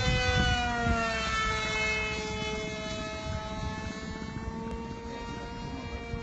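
E-flite Opterra flying wing's electric pusher motor and propeller, on a 4S battery, whining steadily as the plane flies past. The pitch drops slightly over the first second or two, then holds. Wind rumbles on the microphone near the start.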